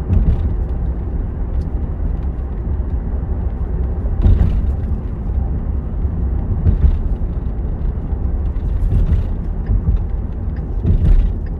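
Steady low rumble of a car being driven, heard from inside the cabin, with a few brief louder bumps.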